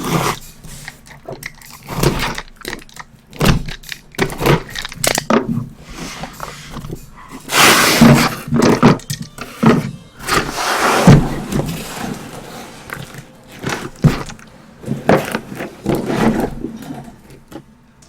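A cardboard case of trading-card boxes being handled and opened: irregular knocks, scrapes and rustles of cardboard and packaging, with a longer rustle about eight seconds in.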